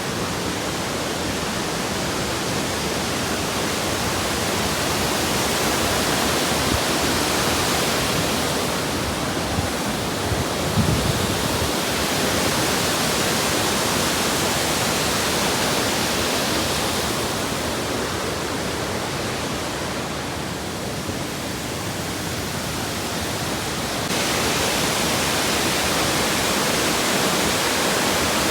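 Waterfall pouring: a steady rush of falling water that swells and eases a little as it goes, with a brief low thump about eleven seconds in.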